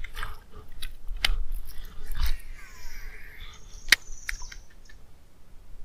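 Baitcasting rod and reel being worked during a lure retrieve: a handful of sharp clicks and knocks, the loudest about four seconds in, over a faint rustle.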